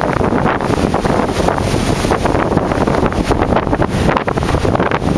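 Strong wind buffeting the camera's microphone: a loud, rough rushing that rises and falls in uneven gusts.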